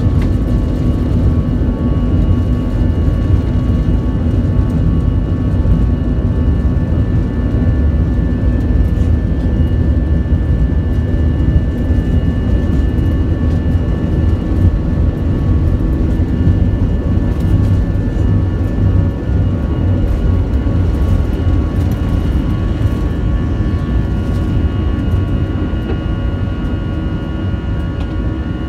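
Airbus A320's jet engines at takeoff thrust, heard from inside the cabin: a loud, steady low rumble with several steady whining tones above it, through the takeoff roll and liftoff. The rumble eases slightly in the last few seconds as the airliner climbs away.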